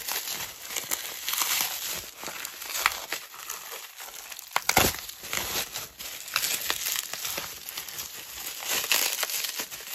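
Bubble wrap crinkling and rustling as hands pull it off a phone box, with many sharp crackles and a louder crackle about halfway through.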